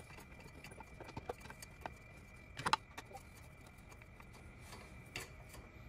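Faint clicks and ticks of a metal hex driver being handled and fitted into bolts while a drag-chain bracket is fastened, with a couple of sharper clicks, one about two and a half seconds in and one near the end.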